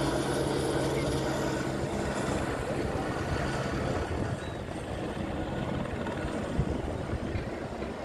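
Helicopter flying past. Its steady low drone drops away after about two seconds as it moves off, leaving an even outdoor hiss.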